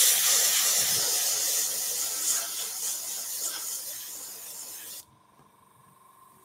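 Dual-action airbrush spraying paint through a stencil: a steady hiss of air and paint that slowly fades, then cuts off sharply about five seconds in as the trigger is released.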